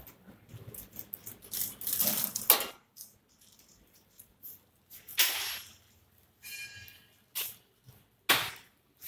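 Horizontal flow wrap packing machine running, heard as irregular bursts of hissing and rustling with near-quiet gaps between them. A brief high squeal comes about two-thirds of the way through.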